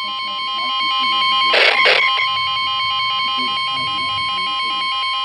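Emergency weather alert tones: a steady, piercing alarm tone with pulsing electronic beeps layered over it, signalling a National Weather Service warning. Two short bursts of noise break in about a second and a half in.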